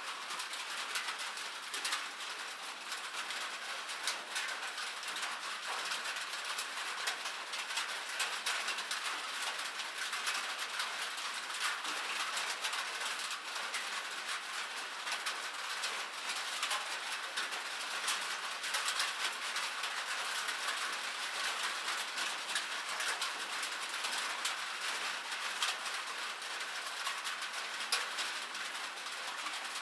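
Light rain falling steadily: an even hiss of rainfall thick with tiny drop ticks, with no let-up.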